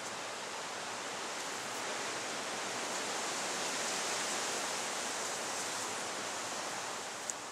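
Steady rushing outdoor noise that swells slightly in the middle, with a single sharp click near the end.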